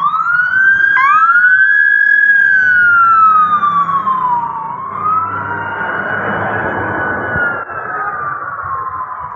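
Police escort sirens wailing slowly up and down, two of them out of step, the second starting about a second in. Under them a motorcycle engine rumbles as it passes close by a few seconds in.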